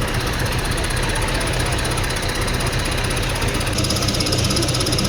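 Electric MRT train running along the track, a steady rumble and hum; a high-pitched whine comes in a little over two thirds of the way through.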